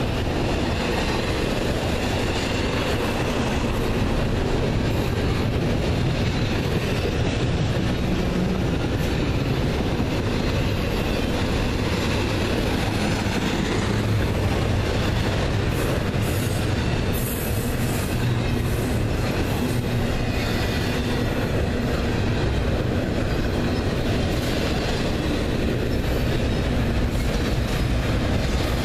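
Double-stack intermodal well cars of a freight train rolling steadily past, their steel wheels rumbling and clacking on the rails at an even, unbroken level.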